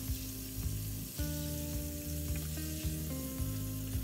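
Breaded chicken pieces deep-frying in hot oil on a low flame, a steady sizzling hiss, under background music with held notes and a regular low beat.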